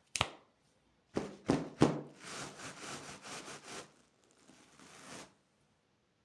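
Candy packaging being handled: a few sharp knocks in the first two seconds, then a couple of seconds of rustling and crinkling that fade and stop near the end.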